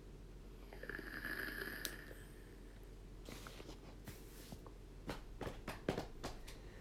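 A vape mod drawn on: a faint airy hiss with a thin whistle through the airflow for about a second, then a long soft exhale about three seconds in. A few light clicks follow near the end.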